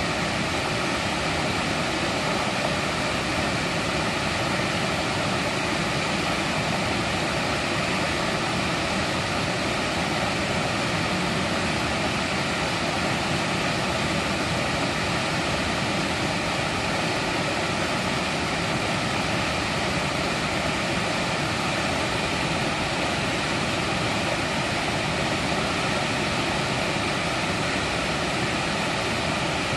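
Mountain valley stream rushing over rocks: a steady, even rush of water with no breaks.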